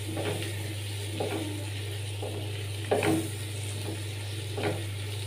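A wooden spatula stirring onions and tomatoes sautéing in oil in a nonstick kadai: about four scraping strokes, with the food sizzling, over a steady low hum.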